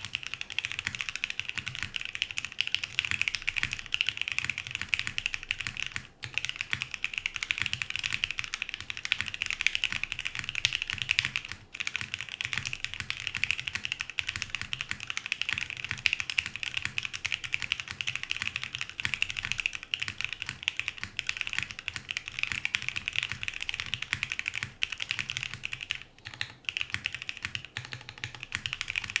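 Fast, continuous typing on a Monokei x TGR 910 v2 ME mechanical keyboard with lubed OPBlack linear switches on a top-mounted polycarbonate plate with PBT keycaps; the keystrokes sound muted and soft. The typing breaks off briefly three times, about 6, 11½ and 26 seconds in.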